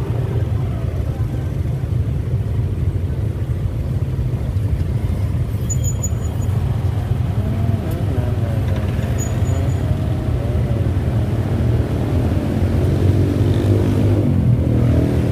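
Motorcycle and scooter engines in slow, stop-and-go city traffic: a steady low engine rumble. Nearby engines rise and fall in pitch around the middle and again near the end.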